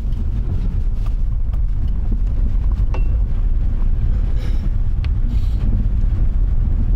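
Road noise inside a car driving on a snow-covered forest road: a steady low rumble of tyres and engine, with a few faint clicks and knocks scattered through it.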